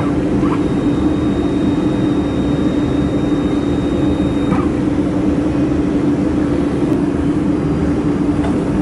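Steady, loud whirring hum of a running laser welding machine setup (fans and motors), with one strong steady low tone and no change throughout.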